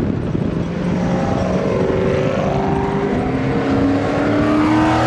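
Car engine running at high revs, its pitch climbing steadily.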